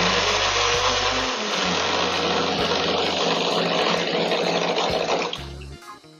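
Ninja Ultima countertop blender running at a higher speed, blending ice cubes and water with a loud, steady whir, then switched off about five seconds in and winding down. It is running normally after its repair, no longer tripping the GFCI outlet.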